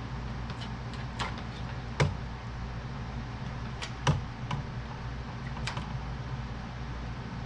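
Scattered light clicks and taps of hand work on the car's hood release cable and tools, with two sharper knocks about two and four seconds in, over a steady low hum.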